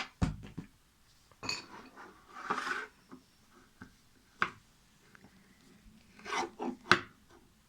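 Goopy slime being squeezed and poked by hand, making irregular wet squelches and pops with short quiet gaps, the sharpest pop near the end.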